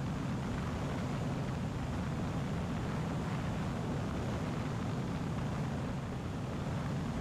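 Steady drone of a Zenith 750 Cruzer light aircraft's Viking 130 engine and propeller in cruise flight, heard from on board with wind noise over the airframe.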